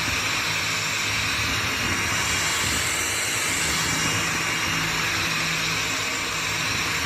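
Commercial vacuum cleaner running steadily: a constant motor whine over rushing air.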